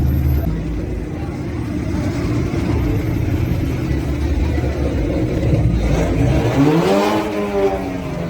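Modified car's engine and exhaust rumbling low, then revved once: the pitch climbs sharply about six seconds in and falls away about a second later.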